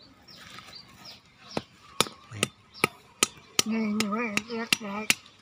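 A large chopping knife striking hard kabok (wild almond) nuts to split their woody shells: about ten sharp knocks, a little over two a second, starting about one and a half seconds in.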